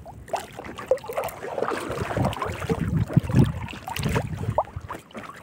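Hands pulling a wet fishing net through the water beside a small boat: irregular splashing and dripping with scattered small knocks.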